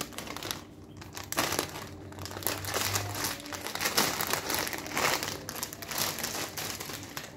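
Clear plastic sleeve of a flower bouquet crinkling and crackling irregularly as hands grip and work it open.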